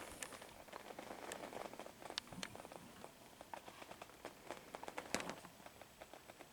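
Vintage 24-inch Pencrest box fan, just switched off, coasting down freely on its bearings: a faint soft whir with scattered light ticks and clicks.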